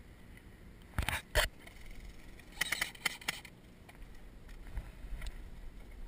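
Two sharp knocks about a second in, then a short burst of rapid, evenly spaced airsoft rifle fire in the middle.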